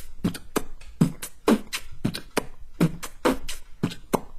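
Human beatboxing: a steady beat of low kick-drum thumps with sharp snare and hi-hat clicks in between.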